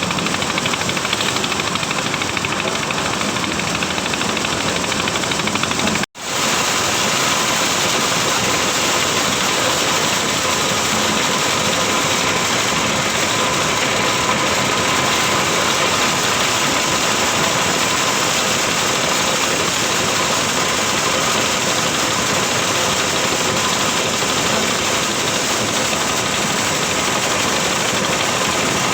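Engine-driven corn sheller running steadily as it shells maize. The loud, even machine noise cuts out for an instant about six seconds in.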